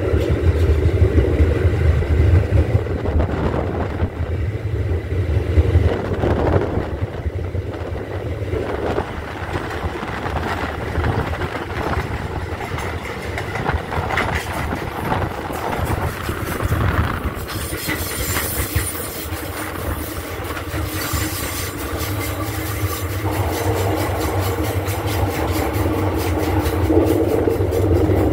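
R160A subway train running at speed, heard from inside the car: a steady rumble and rattle of wheels on the rails, with a spell of high hiss about two-thirds of the way through.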